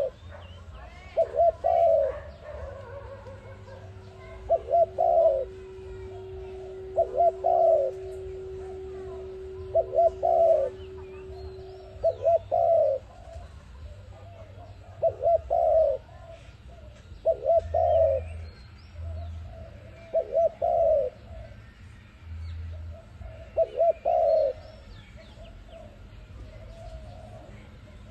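An ARIMIX dove cooing: a phrase of a few quick notes ending in a longer coo, repeated about ten times at intervals of two to three seconds. Faint chirps of small birds sound in the background, and a steady low tone runs under the first ten seconds.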